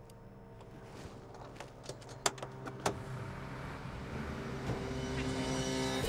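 Car engine and street traffic, a steady low rumble that grows louder toward the end, with two sharp clicks a little over two and about three seconds in.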